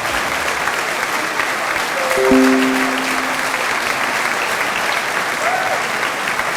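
Large audience applauding steadily, a dense clapping crowd; about two seconds in, three held notes of music step down in pitch under the clapping.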